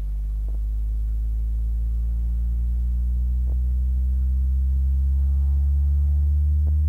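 Harbinger VS18 18-inch powered subwoofer playing a bass frequency sweep at max volume: a deep tone slowly rising in pitch, with a stack of overtones above it. The sub is clipping, and its protection is turning the level down to save itself from damage.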